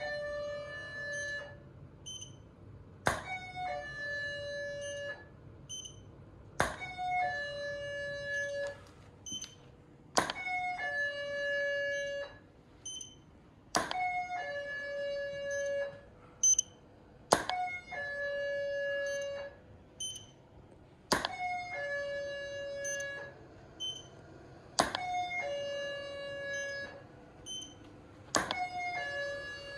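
Elinchrom Pro HD studio flash heads firing about every three and a half seconds, eight times. Each sharp pop is followed by a second or so of electronic tones as the units recycle.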